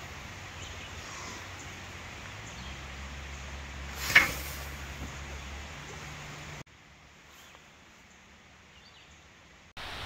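Steady rush of a valley stream, with one sudden loud thump about four seconds in. Near the end the water drops to a much fainter hush for about three seconds.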